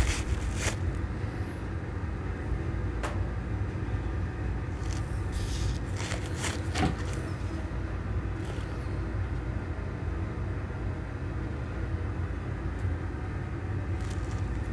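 A steady low background rumble with a faint hum, broken by a few light clicks.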